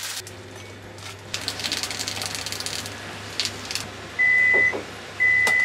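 Two loud electronic beeps near the end, each about half a second long at the same high pitch and about a second apart. Before them, a pot of water bubbles and hisses on an induction cooktop, with a few light clicks and clatters.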